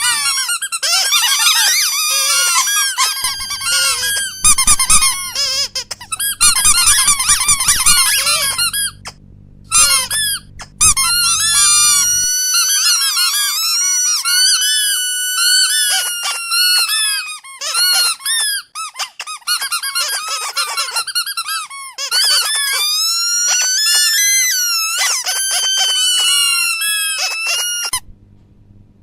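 High-pitched squeaking: many short squeaks rising and falling in pitch in quick succession, with brief gaps. A low hum joins a few seconds in and stops about twelve seconds in.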